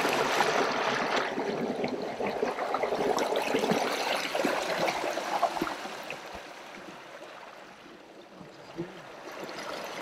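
Water churning in the propeller wash of a Torqeedo Ultralight 1103 electric outboard pushing a fishing kayak, with the wake splashing off the hull. The churning is loudest at first, falls away about six seconds in, and grows again near the end.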